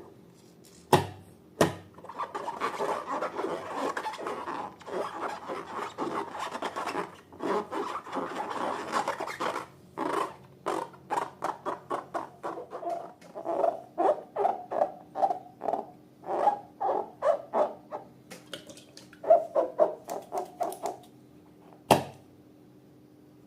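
Slime being worked in a container, with wet rubbing and scraping at first, then a run of short sticky squelches about two or three a second. A few sharp clicks stand out, the loudest near the end.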